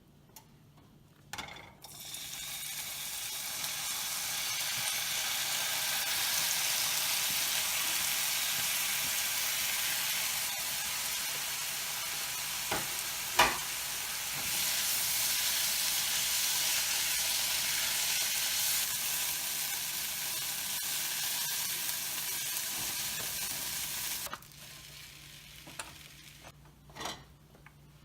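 Food frying in hot oil, a steady sizzle that starts about two seconds in and cuts off suddenly near the end. A single sharp clink of a utensil comes about halfway through.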